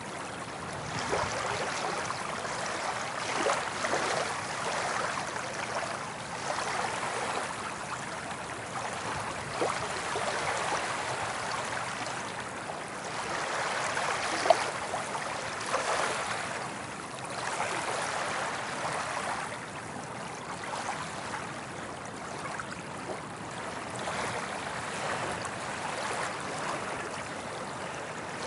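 Soft ocean waves washing onto a beach, the water noise swelling and easing every few seconds. A single brief sharp click about halfway through.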